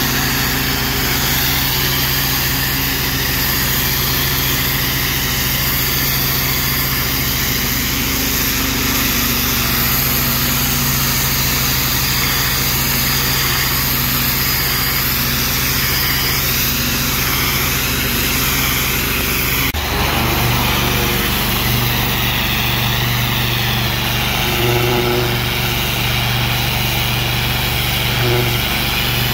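A pressure washer's small engine running steadily under the hiss of the spray jet hitting brick. The engine note changes abruptly about two-thirds of the way through.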